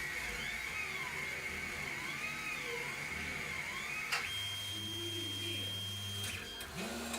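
K8200 3D printer's stepper motors whining as the print head moves, the pitch sweeping smoothly up and down in repeated arcs over a steady high tone. About four seconds in a click breaks it off, and a steady high tone with a low hum holds for about two seconds before a short rising motor tone near the end.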